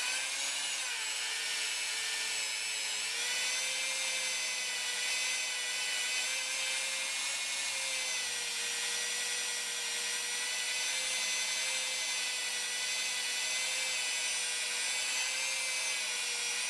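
Electric drill spinning a rubber adhesive-removal (eraser) wheel against car paintwork, running steadily with a high whine as it rubs off leftover trim-strip adhesive.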